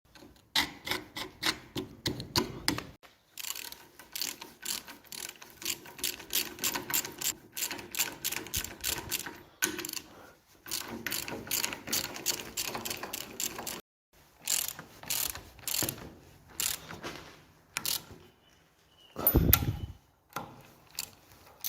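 Ratchet spanner clicking in quick runs as bolts on the plough points are undone and done up, with short pauses between runs. A louder knock comes near the end.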